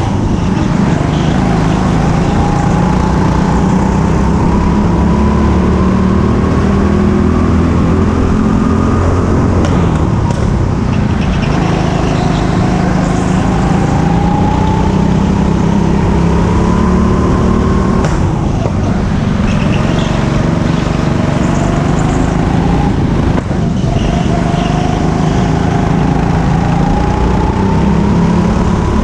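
Go-kart driving hard, its drive note climbing steadily along each straight and dropping back at the corners, several times over.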